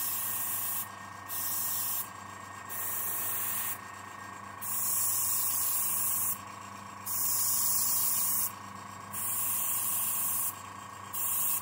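Siphon-feed airbrush spraying acrylic paint in about seven short hissing bursts of a second or two each, as the trigger is pulled and released. An air compressor hums steadily underneath.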